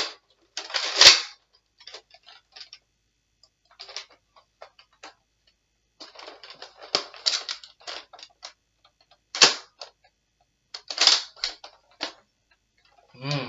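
Plastic clicking and rattling of a toy Nerf blaster's mechanism being worked by hand, in scattered bursts with sharp snaps about a second in and again near two-thirds through. The blaster is jamming and not firing right, and the owner can't tell what is wrong with it.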